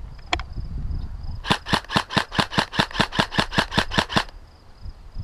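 Airsoft gun firing a quick string of about sixteen shots, about six a second, for nearly three seconds, after a single click about a third of a second in.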